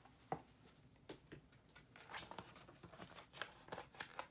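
Faint rustling and soft taps of picture-book pages being turned, with one sharper tap about a third of a second in and a cluster of papery rustles in the second half.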